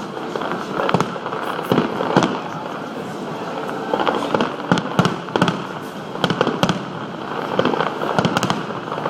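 Fireworks display going off: a rapid, irregular string of sharp bangs and pops, about two a second, over a steady crackling wash.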